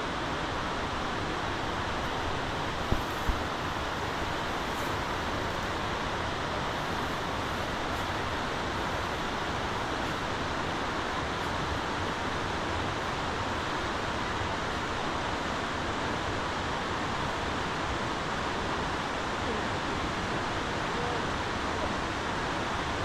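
Steady, even rushing noise with no pitch to it, and two short knocks about three seconds in.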